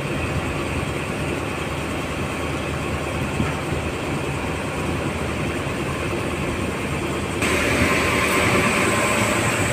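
Steady low drone of a boat engine, mixed with wind and water noise. About seven seconds in, a louder hiss sets in suddenly.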